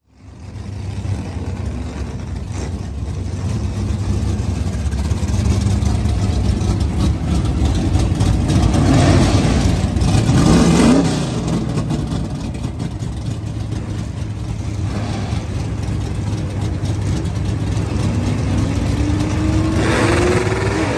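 Plymouth GTX drag car's V8 engine running at a rough, lumpy idle. It is revved up in rising swells about nine seconds in and again near the end.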